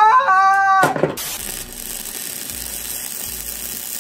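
A held, pitched note for the first second, then a MIG welder's arc crackling steadily as a bead is laid on a cracked steel clutch pedal bracket.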